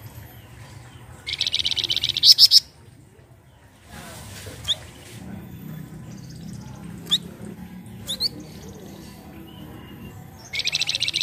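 Flamboyan (Abbott's babbler) calling: a fast buzzy rattle of rapid notes for about a second, ending in two or three loud upswept notes, then a few single sharp notes spaced a few seconds apart, and the rattle starting again near the end.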